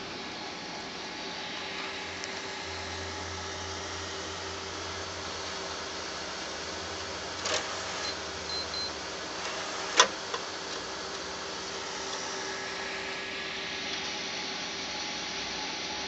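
PC CD-ROM drive tray being driven out and back by an eject loop, tapping a proximity card against a door's card reader: a clunk about halfway through, three short high beeps a moment later, and a sharp, louder clunk about two and a half seconds after the first. A steady machine hum runs underneath.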